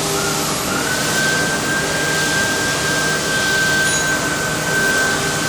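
Running CNC router machinery: a steady loud rush of noise with a high whine that climbs slightly in its first second and then holds steady, over a low hum.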